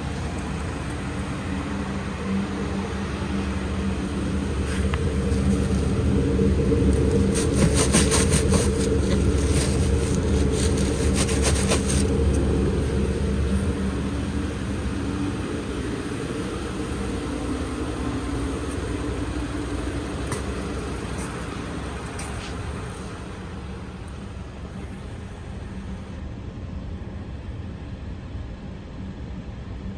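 2012 Kia Soul's 1.6-litre four-cylinder engine idling steadily. It is louder for several seconds in the middle, heard close at the tailpipe, then quieter toward the end.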